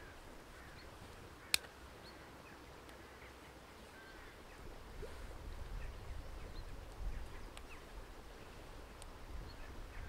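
Birds calling now and then over quiet outdoor ambience, with a single sharp click about one and a half seconds in and a low rumble rising from about halfway.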